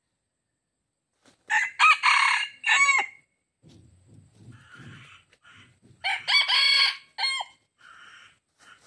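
A red junglefowl cock crows twice, each crow a short run of several loud pitched notes about a second and a half long, about four seconds apart. Faint low sounds and dry-leaf rustling come between the crows.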